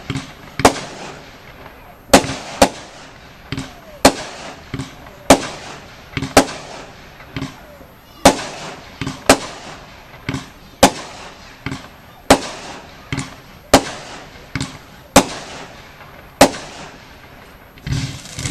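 Consumer (category F2) fireworks bursting in the air: a string of sharp bangs about one a second, each trailing off in crackle, then a deeper thump followed by a burst of crackling right at the end.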